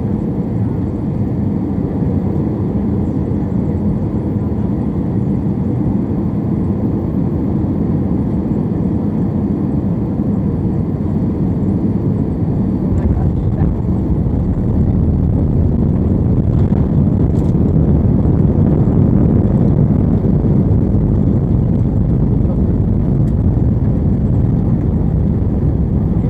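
Airbus A320 cabin noise on landing: a steady engine and airflow noise heard from inside the cabin. It grows louder about halfway through as the airliner touches down and rolls out along the runway.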